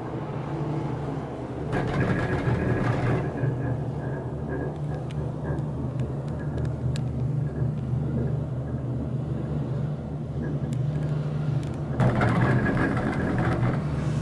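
Ride noise inside a six-seat Leitner gondola cabin: a steady low hum from the moving cabin and cable. It swells twice into a louder rumble and rattle, about two seconds in and again near the end, as the cabin's hanger runs over the sheaves of a lift tower.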